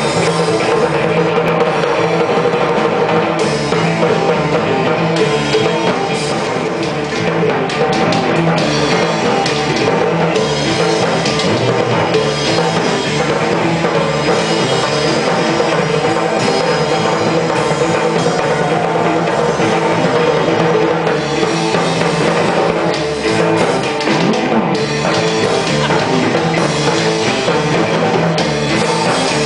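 Live rock music, loud and continuous: a snare drum beaten with sticks over a guitar.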